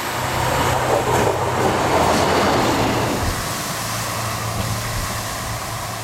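SA108 diesel railcar passing close by: a steady low engine drone and rushing wheel-on-rail noise, loudest a second or two in, with a few wheel clicks over the rail joints, then easing off as it draws away.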